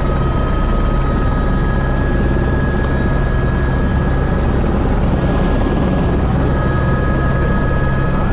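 Airbus H125 (AS350 B3) helicopter running, heard from the cockpit: a steady low rotor rumble under a constant high turbine whine.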